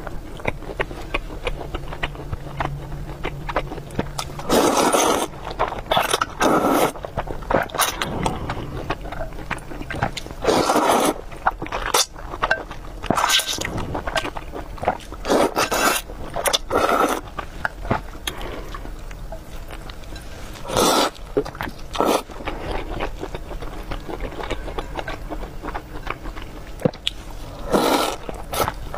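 Close-miked eating sounds: a person chewing with wet mouth clicks, and louder bursts every second or two to few seconds.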